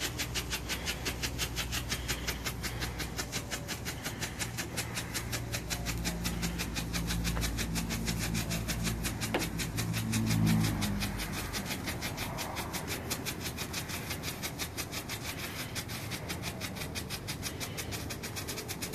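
Big Pro Strobe ground firework burning, its strobe crackling in a fast, even rhythm of about six pops a second.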